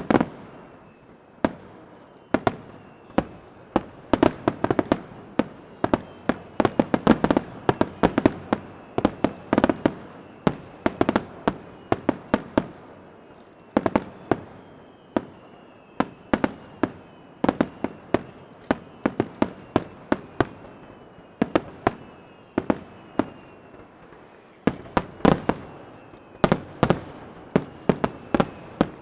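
Aerial fireworks barrage: shells bursting in rapid, overlapping succession, a steady stream of sharp bangs and crackles with faint whistling tones between them. It starts abruptly and dips briefly a few seconds before the end, then the bangs resume.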